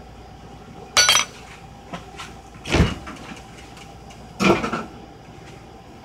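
A metal spoon clinks against an open tin can while crushed pineapple is spooned out, ringing briefly about a second in. Two duller knocks follow on the counter, nearly two seconds apart.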